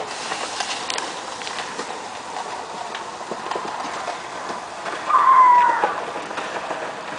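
A child's high squeal, falling in pitch and lasting about a second, about five seconds in, from a girl riding a plastic saucer sled downhill. It sits over a steady background hiss.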